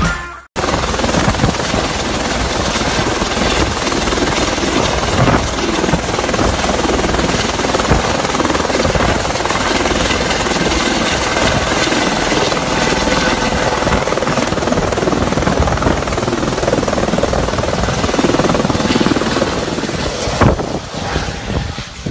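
Helicopter rotor and turbine noise heard up close, steady and loud, starting after a brief silent break about half a second in.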